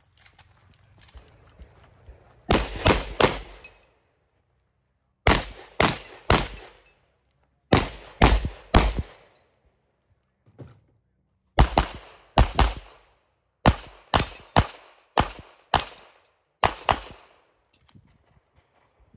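Pistol shots fired in quick strings of two to four, about five strings separated by pauses of a second or two as the shooter moves between positions during a timed practical-shooting stage.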